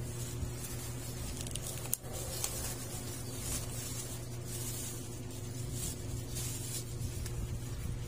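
Clear plastic bag crinkling and rustling in irregular bursts as hands work a mini flexible-leg tripod out of it, with a sharp click about two seconds in. A steady low hum runs underneath.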